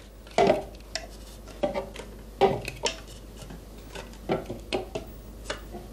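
Light knocks and clatter of white tableware bowls being picked up, tipped and set down on the table and kitchen scales while balloons are emptied from weighing bowls into storage bowls. The knocks are separate and spaced irregularly, about one a second.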